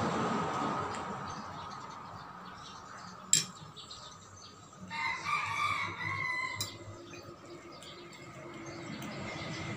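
A rooster crows once, a call of about a second and a half starting about five seconds in. A passing vehicle fades out in the first second, and a single sharp click comes a little after three seconds.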